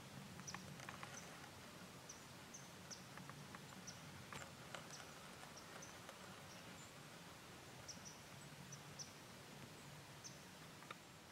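Near silence with faint, scattered short high chirps of small birds and a few soft clicks over a low steady hum.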